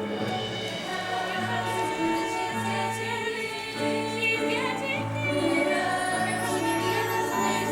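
Music from a stage musical: sustained accompaniment chords with a group of voices singing over it.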